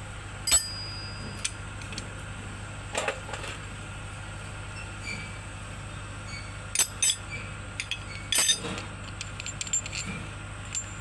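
Steel spanners clinking against the rocker arms and valve adjusting screws on the Kubota M9000 diesel's cylinder head, a scattered series of sharp metal clinks, the loudest about half a second in and a cluster about two-thirds of the way through, over a steady low hum.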